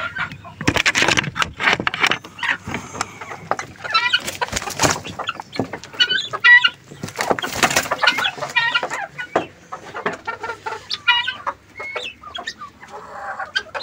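A flock of chickens clucking and cackling, several birds calling at once in quick runs of short repeated notes.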